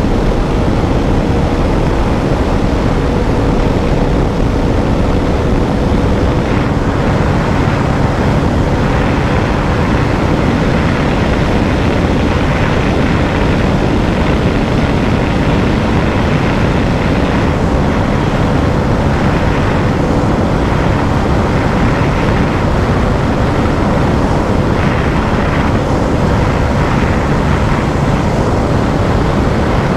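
Bajaj Dominar 400's single-cylinder engine running steadily at high revs in sixth gear at near top speed, under a heavy rush of wind noise on the microphone.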